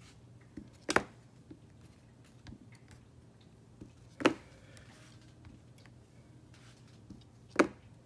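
A clear acrylic stamp block knocking down sharply three times, about three seconds apart, as a leaf stamp is inked and pressed, with faint taps between.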